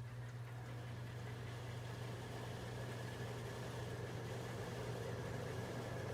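Frigidaire window air conditioner running just after start-up: a steady low hum with a faint high tone above it, growing slightly louder.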